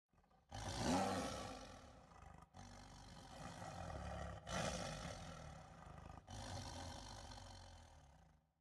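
Deep, noisy animal roaring or growling, in four stretches of about two seconds that each cut off abruptly.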